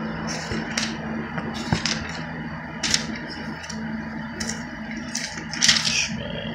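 Thin Bible pages being turned one after another, making a series of short papery swishes and crackles, about six of them, the loudest one near the end. A steady low hum runs underneath.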